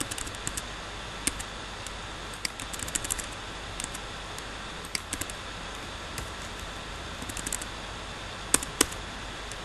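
Keystrokes on a computer keyboard: scattered taps and short quick runs of typing, with two sharper clicks near the end, over a steady background hiss.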